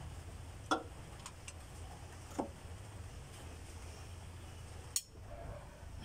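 A few separate metallic clinks of a steel socket and beam-type torque wrench being fitted onto and moved between cylinder head bolts, the sharpest about five seconds in, over a low steady hum.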